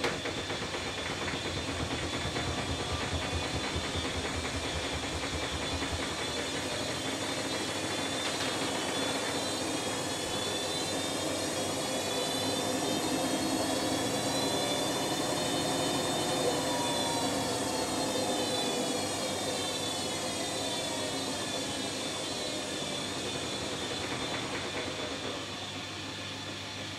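Electrolux EWF9042R7WB front-loading washing machine in its spin with a light load. Its drum knocks rhythmically and low for the first few seconds, then the motor whine rises in pitch as the spin ramps up, peaks midway and falls away again as it slows. The knocking and vibration are what this machine shows with a light load.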